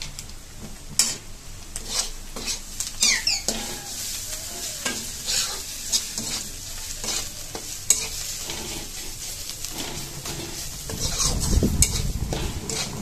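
Steel spatula stirring and scraping onions and spice masala in a metal kadai, with hot oil sizzling; a run of short metal-on-metal scrapes and clicks. A louder low rumble comes near the end.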